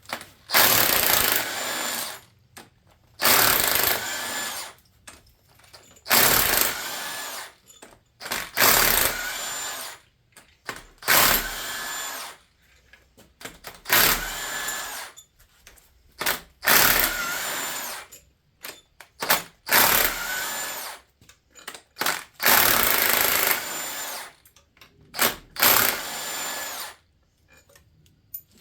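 A small cordless power driver spinning out engine bolts one after another: about ten short runs of a second or two each with brief pauses between, each winding down as it stops.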